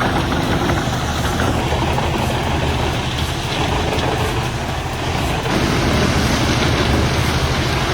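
A heavy machine's engine running steadily, with a low, even hum and a noisy churn over it that grows brighter about two thirds of the way through.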